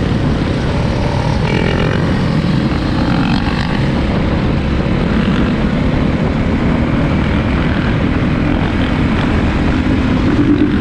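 Honda CRF450 dirt bike's single-cylinder four-stroke engine running steadily under way, loud and unbroken.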